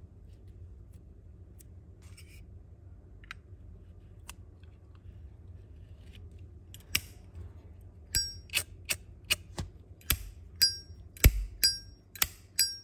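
Metal Zippo lighters clicking and clinking as they are handled: a few light ticks, then about a dozen sharp, ringing metallic clinks, roughly two a second, over the last five seconds.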